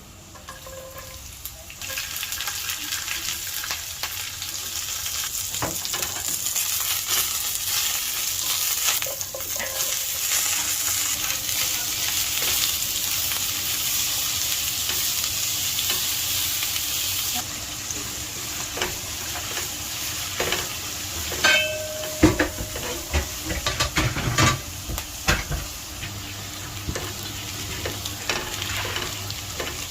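Food frying in a pan of hot oil, sizzling loudly from about two seconds in and easing a little past the middle. A utensil stirs and knocks against the pan, most heavily in the second half.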